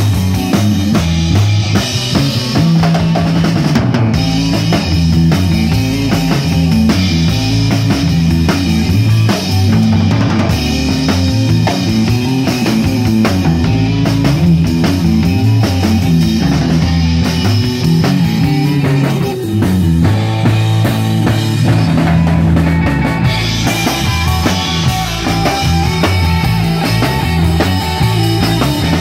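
A live instrumental surf rock band playing: twangy electric guitar over bass guitar and a drum kit keeping a steady beat.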